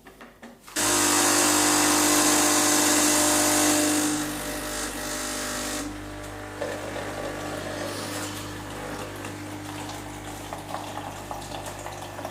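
Bosch Tassimo T40 pod coffee machine running its cleaning cycle with a service T-disc: the water pump starts suddenly about a second in with a loud steady hum and hiss, eases off after about three seconds, and then keeps pumping more quietly as hot water runs through into the cup.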